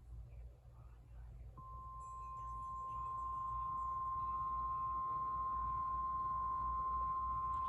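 Emergency-alert attention tone: a single steady high beep at about 1050 Hz, the NOAA Weather Radio warning alarm tone that comes before a warning message. It starts about a second and a half in, after a low hum, and holds steady.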